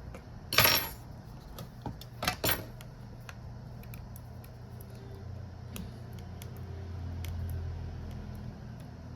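Small metal tools or parts set down on a hard workbench: a sharp metallic clink about half a second in, then two quick clinks a little after two seconds, with faint ticks afterwards over a low hum.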